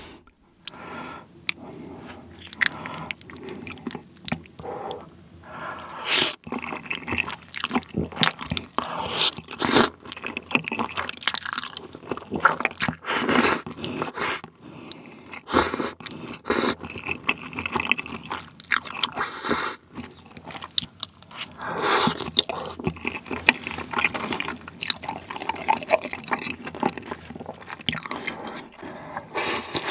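Close-miked eating of linguine in a spicy cream tteokbokki sauce: wet slurping of saucy noodles and chewing, with frequent mouth clicks and several louder slurps.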